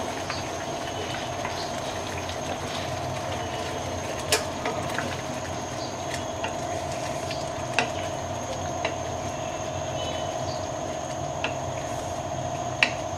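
Thick curry simmering and bubbling in a nonstick kadai as a wooden spatula stirs it, over a steady hum. A few sharp taps of the spatula against the pan stand out, the loudest about four seconds in and near the end.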